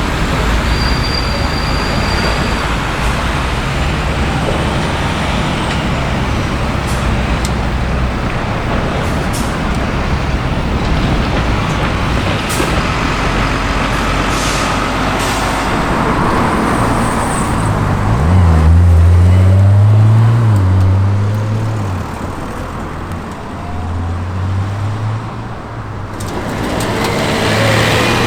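Road traffic noise, then a vehicle engine running at low revs about two-thirds of the way in, its low note stepping up and down in pitch, dipping and coming back near the end.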